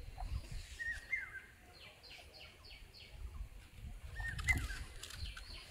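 Birds calling: a short warbling call twice, about three seconds apart, and a quick run of about five high, falling chirps between them, over faint low rumbling.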